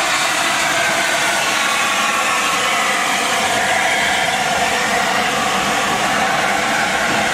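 LNER A4 Pacific steam locomotive No. 60007 and its tender passing slowly at close range: a steady, even rushing noise with no clear exhaust beat.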